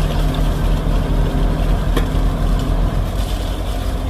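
Heavy construction machinery with a diesel engine running steadily, with one sharp click about two seconds in.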